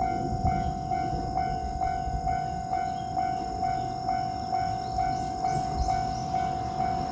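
Japanese railway level-crossing warning alarm ringing with a steady repeating ding, about two strikes a second, the signal that a train is approaching. A low rumble runs underneath.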